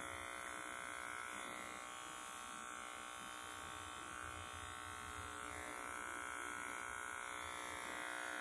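Electric pet clipper running steadily with an even buzz as it trims a poodle puppy's fur.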